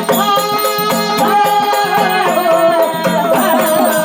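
Marathi devotional folk music for Malhari: a melody held with steady tones, then wavering from about halfway through, over regular drum strokes and rattling percussion.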